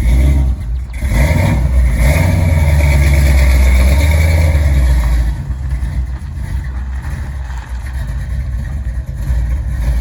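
A vehicle engine pulling hard with a deep rumble for about five seconds, then easing off to a quieter, steadier run.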